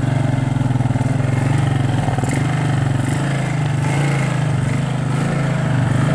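TGB Blade 550 quad's single-cylinder four-stroke engine running steadily with the quad standing still, just after it has finally started.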